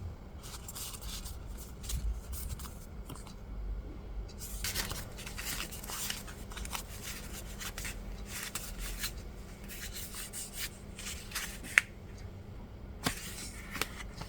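Hands handling paper journaling materials close up: intermittent rustling and crinkling of paper and packaging, with a couple of sharp clicks near the end.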